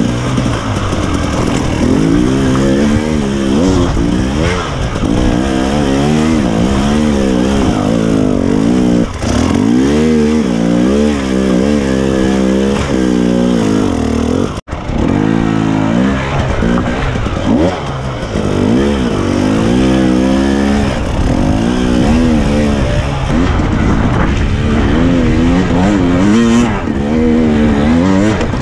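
KTM enduro motorcycle engine revving up and down over and over, the throttle worked hard as the bike climbs over loose rock. The sound cuts out for an instant a little past the middle.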